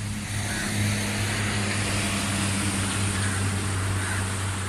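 A steady, unchanging low motor hum with an even rushing noise over it.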